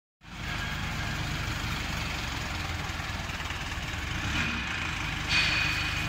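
Crawler skid steer loader's engine idling steadily with an even low throb. Near the end a louder, shrill high tone comes in over it.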